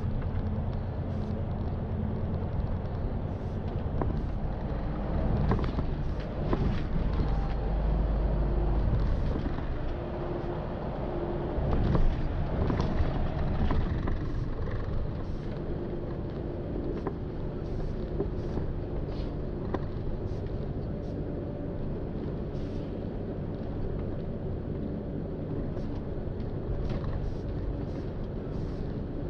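Cab interior of a MAN tractor-trailer truck cruising on a highway: a steady diesel engine drone under tyre and road noise, with a deeper low rumble swelling for a few seconds near the start.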